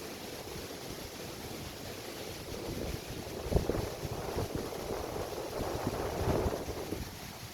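Sea waves washing onto a beach, with wind gusting on the microphone; the strongest gust comes about three and a half seconds in, and a wave surges near the end.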